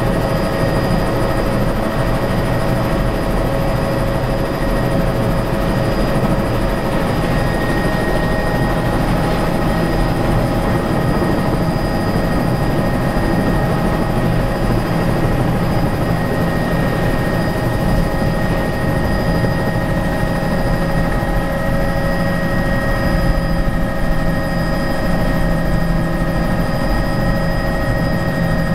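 Helicopter turbine engine and rotor running steadily, heard from inside the cabin, a loud even rush with steady whining tones, as the helicopter lifts off and flies out low over the water.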